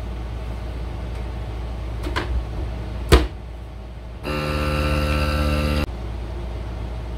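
A Nesco vacuum sealer's lid pressed shut with a sharp click, then its vacuum pump running with a steady hum for about a second and a half before it stops suddenly.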